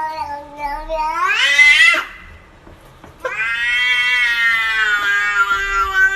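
Domestic cat yowling in two long, drawn-out meows: the first rises in pitch and breaks off about two seconds in, and the second starts about a second later and is held steady.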